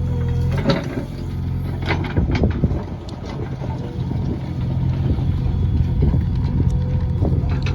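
Heavy diesel machine engine running steadily, with repeated metallic knocks and clanks over it.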